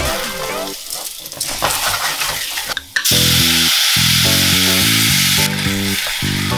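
White wine poured onto hot rice toasting in a stainless steel saucepan sizzles loudly, starting about three seconds in and easing off about two and a half seconds later. Before that, dry rice is stirred with a wooden spoon. Background music plays throughout.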